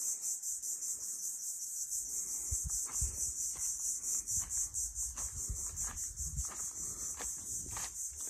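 Insects chirping, such as crickets, in a steady high-pitched pulsing chorus at about five to six pulses a second, with a few low thumps in the middle.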